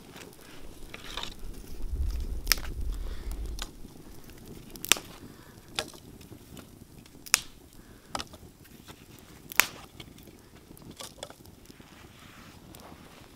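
Small fire of dry twigs crackling, with sharp single pops every second or two. A low rumble, like wind on the microphone, comes about two seconds in.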